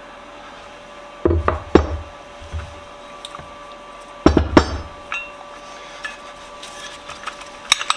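Hammer blows on a bench vise being taken apart: two pairs of heavy metallic knocks with a short ring, the second pair about three seconds after the first, then a couple of light clicks near the end.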